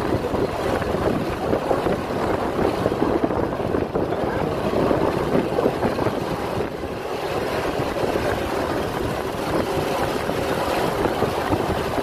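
Steady rushing wind buffeting the microphone.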